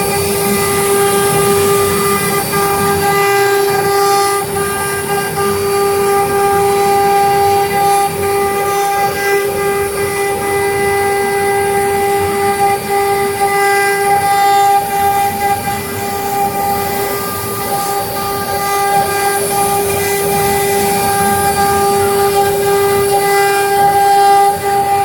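Air-cooled spindles of a double-head CNC wood router running, a loud steady high whine with a ladder of overtones over a rough, uneven noise beneath.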